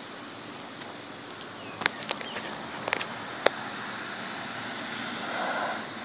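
Steady outdoor background noise, with a few short, sharp clicks about two to three and a half seconds in and a slight swell in the noise near the end.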